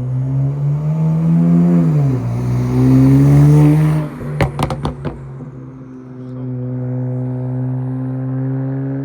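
BMW 335i turbocharged inline-six revving through a straight-piped exhaust. The revs climb, dip and climb again, a few sharp exhaust pops come as the throttle is let off, and then the engine is held at a steady rpm. The sound is very loud.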